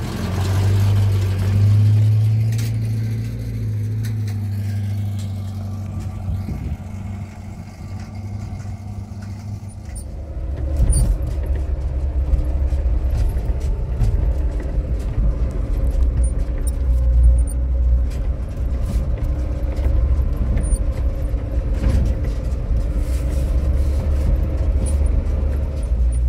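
A motor vehicle's engine running: a strong low drone that sinks a little in pitch over the first few seconds, then a steady low rumble with frequent clicks and rattles from about ten seconds in.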